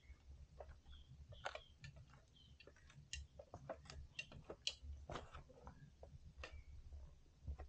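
Irregular light clicks and knocks of a hiker's steps and hand grips going down a metal trail ladder, over a low rumble.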